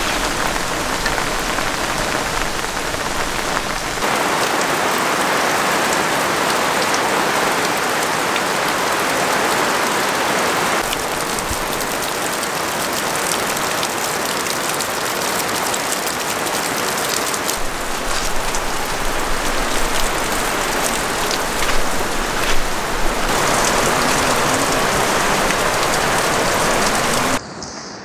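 Heavy downpour: a steady hiss of hard rain falling, which shifts in level a few times (about 4, 11 and 23 seconds in) and cuts off abruptly just before the end.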